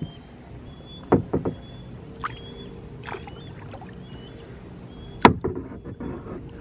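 Bald eagle calling: thin, high, short whistled notes repeating about once a second. Under them come hollow knocks of a paddle against a plastic kayak, three quick ones about a second in and one sharp, loudest knock about five seconds in.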